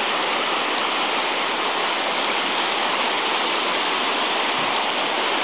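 Fast, shallow river rushing over rocks and boulders: a steady, even wash of white water.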